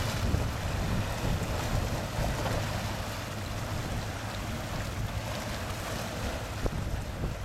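Steady wind buffeting the microphone, a low rumble over the hiss of rushing sea water.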